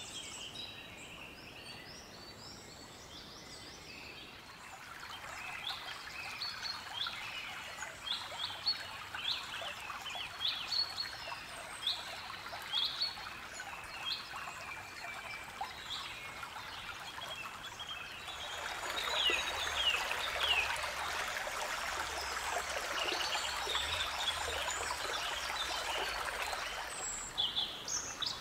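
Woodland birds singing in many short chirping phrases over a shallow stream trickling and babbling. The water comes in a few seconds in and is louder from about two-thirds of the way through.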